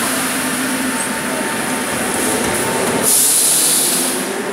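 Moscow metro train standing at the platform with its doors open, giving a steady hum and hiss from its on-board equipment. About three seconds in a louder hiss rises and lasts about a second.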